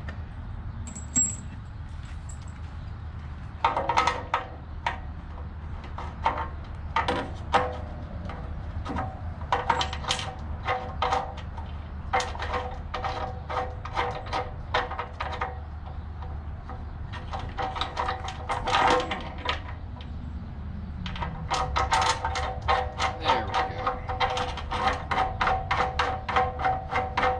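Irregular metallic clicks and clinks of nuts, washers and a wrench on steel ring toss pegs as they are bolted into an aluminum panel. About three quarters of the way through, a fast, even run of clicks with two steady tones takes over and continues to the end.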